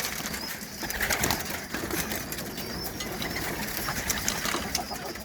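Domestic pigeons in a loft cooing and fluttering their wings, with many small sharp clicks and rustles throughout.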